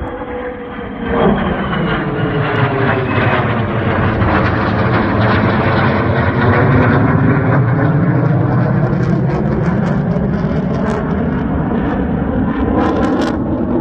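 Military fighter jet flying past at close range. Its engine noise is loud and steady, with a whine that falls in pitch over the first few seconds, and a sharp crackle near the end.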